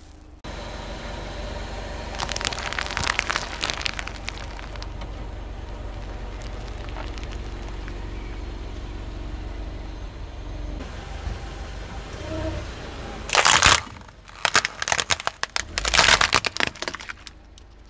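A car tyre rolling slowly over objects and crushing them, over the low hum of the car: crinkling crackles a couple of seconds in, then a loud crack about thirteen seconds in and a run of snapping crunches as plastic toy trucks break under the wheel.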